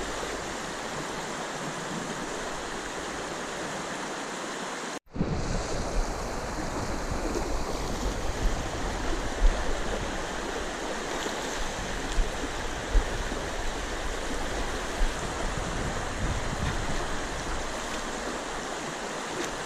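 Shallow river current rushing steadily over a rocky riffle. The sound cuts out abruptly for a moment about five seconds in, and a few short sharp sounds stand out later.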